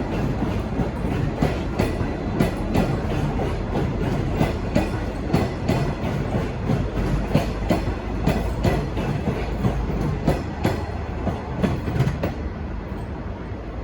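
Departing V/Line passenger train of H set carriages rolling past, its wheels clattering rapidly and irregularly over rail joints over a steady rumble. The clatter dies away near the end.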